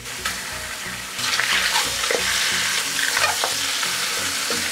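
Raw chicken drumsticks sizzling in hot olive oil in a large metal pot. The sizzle swells a little over a second in, with a few knocks as the pieces are moved around the pan.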